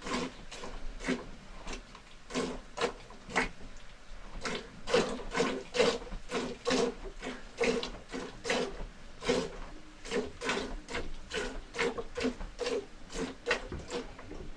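A farm animal making a quick, steady series of short calls, about two or three a second.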